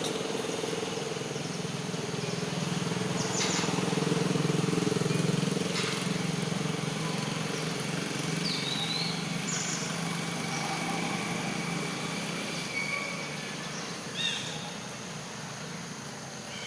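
A motor running with a steady drone that is loudest about four to five seconds in and fades away about two-thirds of the way through, with a few short high chirps, the sharpest near the end.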